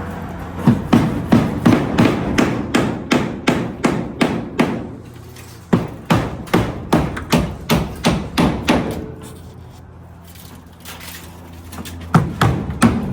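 Hammer striking repeatedly at about four blows a second, in three runs with short pauses between them, typical of driving nails on a building site.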